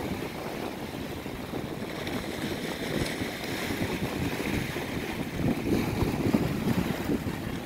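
Wind buffeting the microphone in uneven gusts, over the wash of low sea waves.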